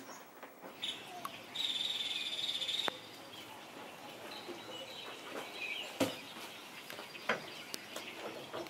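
Crickets trilling steadily for about a second, cut off abruptly, then light steady rain with birds chirping and a couple of sharp knocks from the cargo trailer's metal door being handled.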